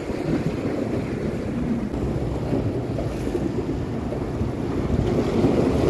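Wind buffeting the microphone over the steady wash of sea waves breaking against shoreline rocks.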